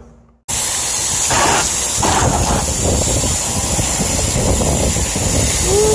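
Steady hiss of a power-washer jet spraying through the fins of an air-conditioner condenser coil, washing packed dirt out of a clogged coil. It starts abruptly about half a second in.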